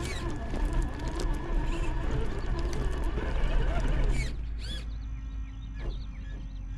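Electric motor and geared drivetrain of a Traxxas TRX-4 RC crawler whining as it crawls. The sound drops off after about four seconds, leaving a fainter steady whine and a few short chirps.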